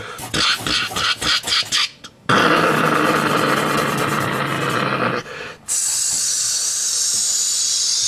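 Mouth-made sound effects for machines crashing into one another: a quick run of short bursts, about four a second, then a long buzzing noise, and after a short break a steady high hiss.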